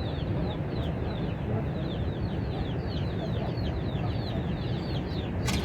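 Birds chirping: many short, high, falling chirps several times a second over a steady rushing background, with a sharp click near the end.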